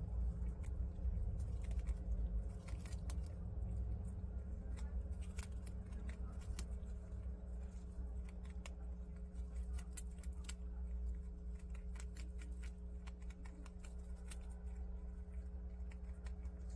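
A prairie dog chewing fresh bamboo leaves: quick, irregular crisp clicks and crunches, over a steady low hum.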